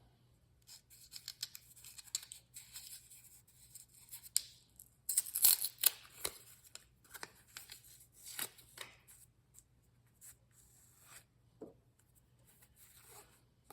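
Wrapping being torn and crinkled off a deck of game cards: an irregular run of crackles and rustles, loudest about five to six seconds in.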